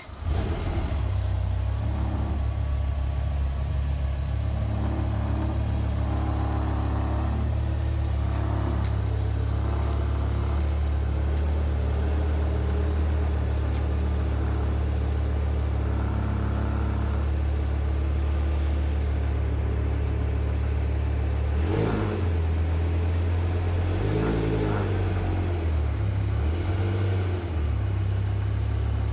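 BMW E60 M5's V10 engine catches right at the start and runs at a steady idle. Its note wavers unevenly for a few seconds about twenty seconds in. It is running under its own power for the first time in the restoration.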